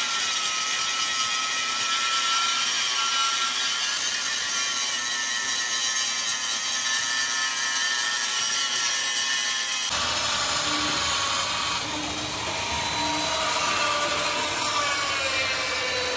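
A power tool running steadily under load, a dense hiss with a faint high whine; about ten seconds in the sound changes abruptly to a different machine noise with more low rumble.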